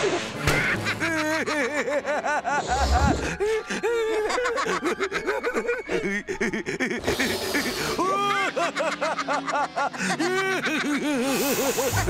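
Two cartoon characters laughing and snickering in repeated rhythmic bursts, one voice after the other. Short hissing bursts of gas from the cylinder hose come in between, the clearest near the middle and at the end.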